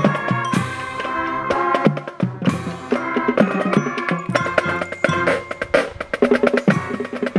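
Marching band playing: brass and winds over drums and the front ensemble's timpani and mallet percussion, with frequent sharp drum strokes.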